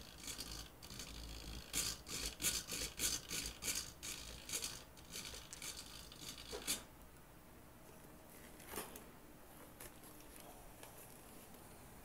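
Handling noise from a model airplane's tail being worked close to the microphone: quick scraping and rubbing strokes, a dozen or so in a row, that die away after about seven seconds, with one more scrape near nine seconds.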